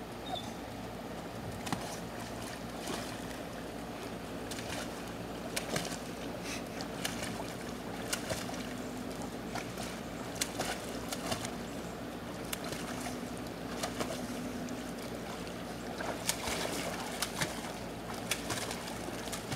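Water splashing and sloshing in a shallow above-ground frame pool as a Rottweiler wades and moves about in it, in many short irregular splashes over a steady low hum.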